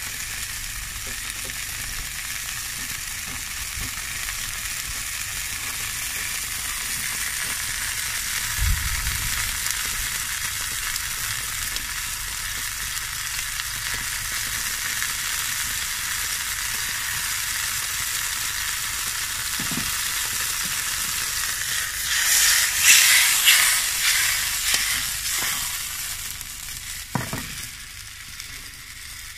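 Chopped mushrooms sizzling in a black steel frying pan over wood embers: a steady hiss that swells louder for a few seconds about three quarters of the way through, then falls off near the end after a short knock as the pan is lifted off the heat.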